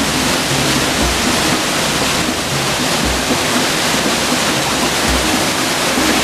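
Steady loud rush of white water from a waterfall in a mountain stream, with a faint low thump about every two seconds underneath.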